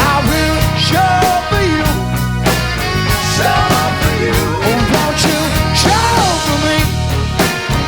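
A rock band playing live: drums and bass keep a steady beat under a gliding lead melody line.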